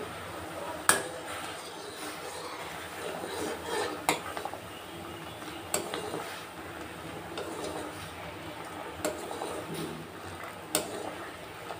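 Metal ladle stirring in a wide aluminium kadai of hot bubbling liquid, clinking against the pan about five times, the sharpest about a second in, over a steady bubbling hiss.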